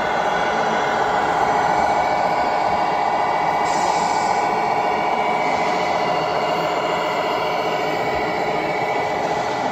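Radio-controlled scale tractor unit pulling a loaded low-loader close by: a steady mechanical drone with a high whine that holds level throughout.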